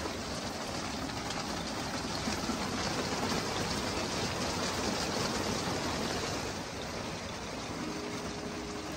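Heavy monsoon rain falling steadily, an even, unbroken hiss of water.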